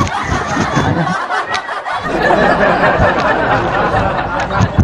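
A man snickering quietly over a steady rushing noise that grows fuller about halfway through.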